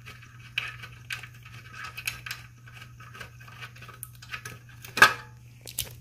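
Scattered light metallic clicks and scrapes of a hand tool working the 10 mm bolts of an engine-bay exhaust heat shield, with one sharper click about five seconds in. A steady low hum runs underneath.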